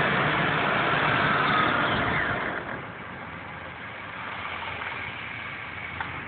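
Whipple-supercharged 5.4-litre V8 of a 2001 Ford SVT F-150 Lightning running, heard over the open engine bay. It runs louder at first with a high steady whine, then settles to a quieter idle about two and a half seconds in. A single sharp click comes near the end.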